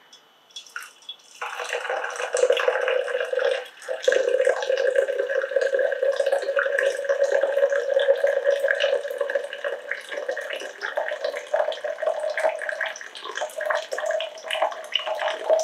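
Water poured in a stream from an electric kettle into a glass jug. It starts as a thin trickle and becomes a full splashing pour about a second and a half in, and its pitch rises slowly as the jug fills.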